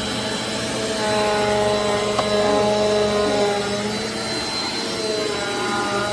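Upright vacuum cleaner running, its motor giving a steady whine over a rush of air, with a small knock about two seconds in.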